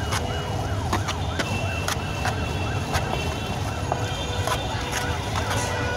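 Street noise: a steady low traffic rumble with a fast, repeating up-and-down warbling tone like an electronic siren, about three sweeps a second, and a few sharp clicks scattered through it.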